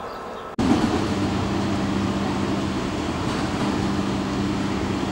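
Electric commuter train standing at the platform, its onboard equipment giving a steady hum with a held low tone. The first half second is a quieter approaching-train rumble that cuts off abruptly.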